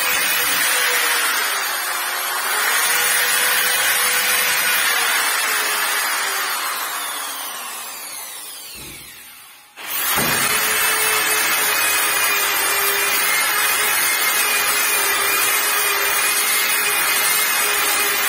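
Corded electric sander running steadily with a whine, its round pad rubbing the painted surface of a wooden door. About six seconds in the motor winds down with falling pitch almost to silence, then it starts up again sharply near the ten-second mark and keeps running.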